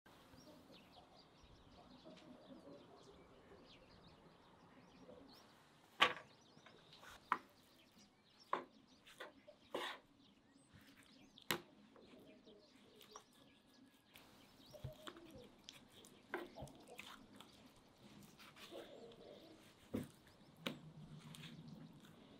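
Knife deboning raw chicken thighs on a wooden cutting board: scattered sharp taps of the blade on the board. Faint bird chirps can be heard in the background.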